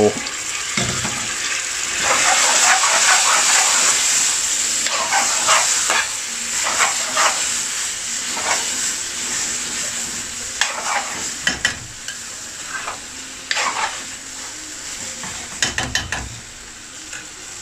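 Base gravy sizzling in a hot aluminium pan of chicken curry, loudest from about two seconds in and easing later. A metal chef's spoon stirs through it, with short scrapes and clicks against the pan, more of them near the end.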